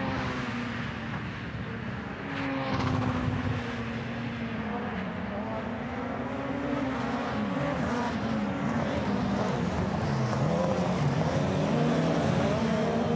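Several RX2 rallycross cars, with naturally aspirated four-cylinder engines, racing in a pack. Their engines rev up and down through gear changes and corners, with a louder swell about two and a half seconds in.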